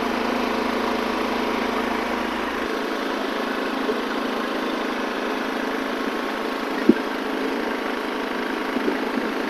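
Firman WH03242 dual-fuel inverter generator running steadily on propane from a barbecue tank, a constant even hum. A single sharp click cuts through it about two-thirds of the way in.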